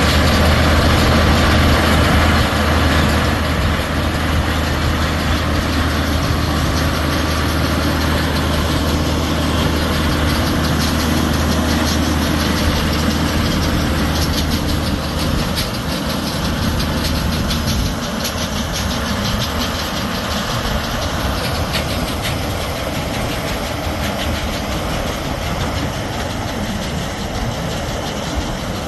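Hanwo 160 hp tractor's diesel engine running under load while pulling a small square baler through windrowed hay, with a repeated mechanical clatter from the baler. The engine hum is loudest as the tractor passes close at the start and eases off after about fifteen seconds.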